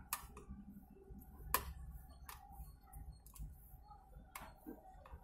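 Faint, scattered plastic clicks and taps as a charging cable's plug is worked into the socket of an LED camping lantern, about half a dozen in all, the sharpest about one and a half seconds in.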